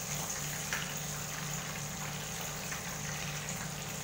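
Fish sizzling in hot oil in a frying pan, a steady hiss with small crackles, and a light click about 0.7 s in as metal tongs turn the fish. A steady low hum runs underneath.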